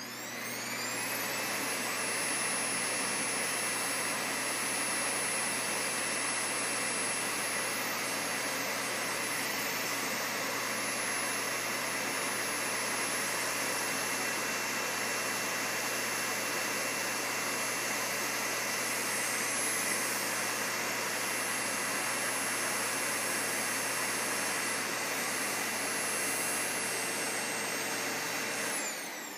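Vacuum cleaner motor spinning up, running steadily with a high whine over a dense rush of air, then switched off and winding down near the end.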